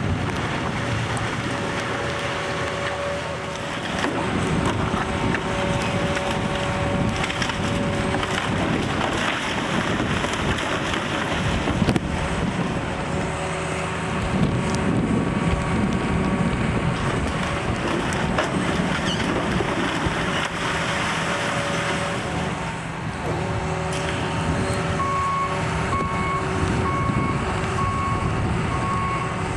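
Heavy demolition machinery running while wood is crushed and splintered, with a sharp crack about halfway through. Near the end a reversing alarm starts beeping about once a second.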